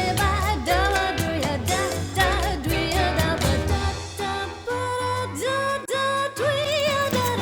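Background pop song with a female-range singer over a steady drum beat and bass.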